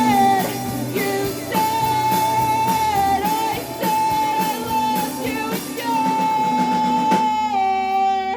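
Rock band playing live: long held sung notes over guitar and a steady drum beat. The drums stop about seven seconds in, and the final chord and note ring out to close the song.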